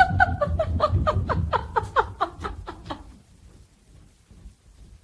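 Person laughing, a quick run of short 'ha-ha' syllables that fades out about three seconds in.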